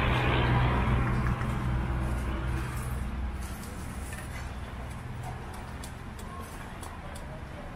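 A motor vehicle's engine running, a steady low hum that fades away over the first three to four seconds. A few light metal clinks follow.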